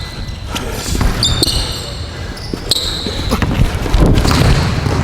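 Basketball bouncing on the court with sneakers squeaking in short high squeals, during one-on-one play.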